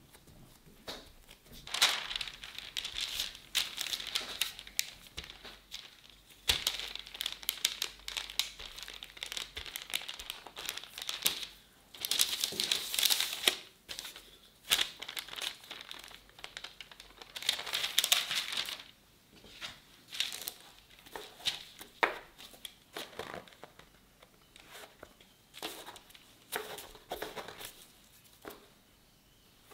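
Parchment paper crinkling and rustling as gloved hands press and smooth shortbread dough flat through it. It comes in bursts with short pauses, growing sparser and lighter near the end.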